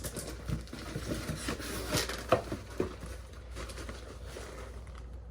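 Packaging and parts being handled while a box is unpacked: rustling with scattered clicks and knocks, the sharpest right at the start and about two seconds in.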